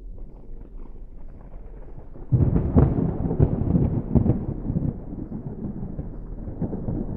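Low, irregular rumble of wind buffeting the microphone, jumping much louder about two seconds in.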